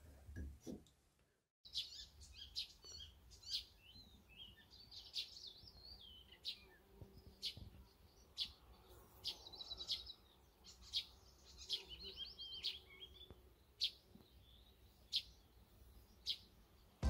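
Small songbirds chirping and twittering, with short trills mixed with sharp single chirps about once a second.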